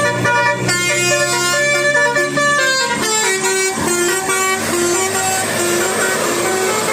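Indonesian bus 'telolet' horn, a multi-tone musical horn, playing a tune of short notes: quick and high for about three seconds, then a slower, lower run of notes.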